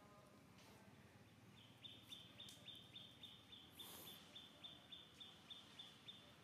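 Faint, high chirping at one steady pitch, repeated about four times a second, starting about two seconds in and running for several seconds over a quiet outdoor background.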